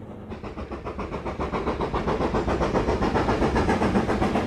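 Steam locomotive chuffing with a fast, even beat of about five chuffs a second, growing louder over the first couple of seconds and then holding steady as the train approaches.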